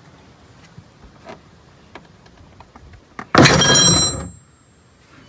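Wrench on a car's oil drain plug being forced with a foot: a few light knocks, then about three and a half seconds in a sudden loud metallic bang with ringing for about a second as the plug breaks loose.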